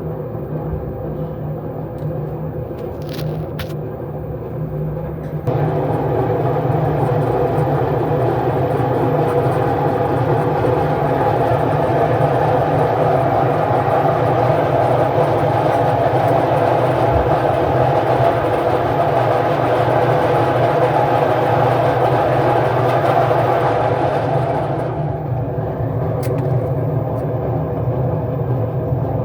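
Direct-drive washing machine spinning, its drum very noisy with a steady hum; the noise steps up about five seconds in and eases back a few seconds before the end. The repairer suspects the drum bearings.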